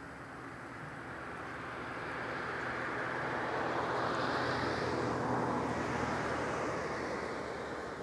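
A vehicle passing on the highway beside the pond: tyre and engine noise that swells over several seconds, is loudest a little past the middle, then fades. A steady low hum runs under it.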